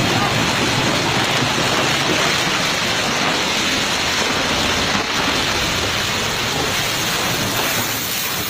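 Pamba river in sudden flood, the floodwater rushing past in a steady, loud, unbroken rush of noise.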